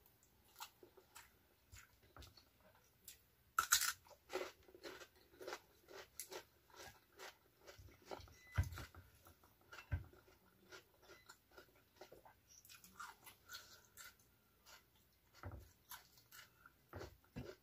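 A person chewing a mouthful of rice with raw vegetables close to the microphone: a steady run of short crisp crunches, one much louder crunch about four seconds in, and a couple of dull bumps around the middle.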